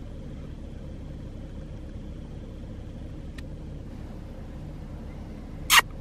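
Vehicle engine idling steadily with a low rumble. About three quarters of a second before the end, one loud, very short, high sharp chirp cuts in, the first of a quick series.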